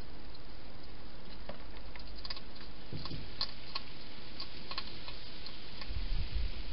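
Wild hedgehog eating from a bowl inside a plastic feeding box: scattered, irregular crunching clicks of chewing, then a few low thumps near the end, over a steady background hiss.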